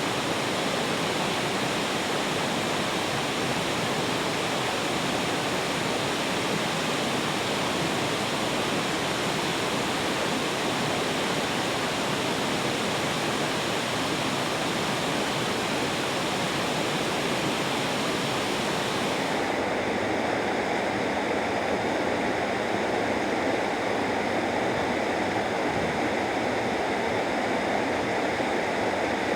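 Waterfall pouring steadily into a mountain gorge, a continuous rushing of water. About two-thirds of the way through, the sound suddenly turns duller and less hissy.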